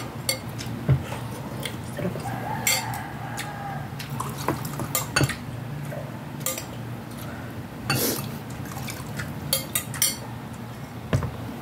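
Metal spoon clinking and scraping in a glass bowl of beef pochero soup, with the broth splashing and dishes knocking on the table in scattered sharp clinks, the loudest about a second in and at about eight seconds.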